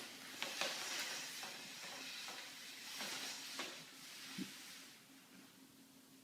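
Faint hiss with a steady low hum and a few soft clicks. It drops to silence about five seconds in.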